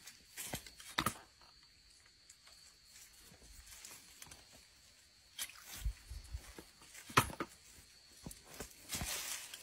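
Scattered knocks, clicks and rustles as a long eel-catching tool pokes and scrapes through dry straw, leaf litter and mud at a ditch edge. The loudest knocks come about 1 second and 7 seconds in.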